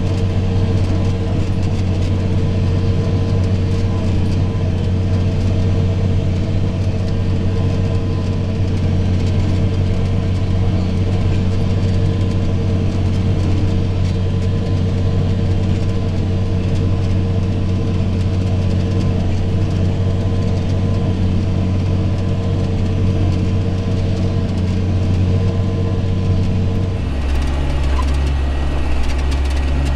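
John Deere 8320 tractor's six-cylinder diesel running steadily under load while pulling a disc harrow, heard from inside the cab. About 27 seconds in, the sound changes abruptly to a lower, deeper engine note.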